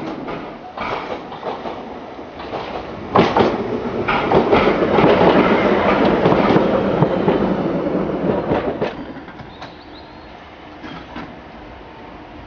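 An ex-London Underground 1938 tube stock electric train running past close by, wheels clicking over the rail joints. The noise swells about three seconds in and dies away near nine seconds, leaving a quieter train rolling along with a few clicks.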